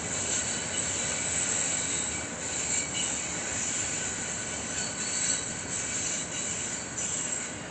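Freight train rolling past with a steady noise of cars on the rails, and steel wheels squealing thinly against the rail.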